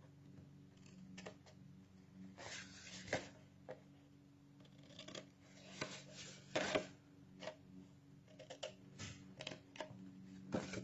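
Scissors snipping through kraft cardstock, notching the corners of a box blank: a series of short, faint snips at irregular intervals.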